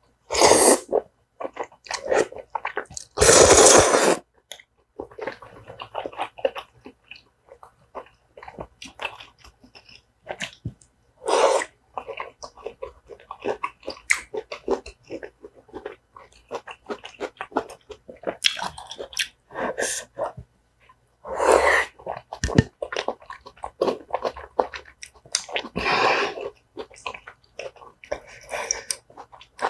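Close-miked mukbang eating of tteokbokki: two loud slurps of noodles near the start, then steady wet chewing and mouth clicks, with more loud slurps later on.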